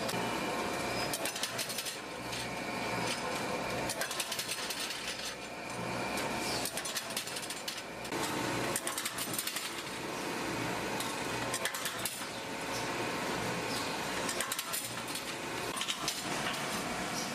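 Factory machinery running with a steady hum, under frequent sharp metallic clinks and knocks of steel being handled.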